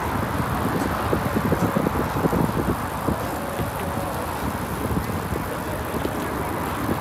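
Riding noise from a moving bicycle: steady wind rush buffeting the microphone, with tyre and road rumble and small knocks from the bike.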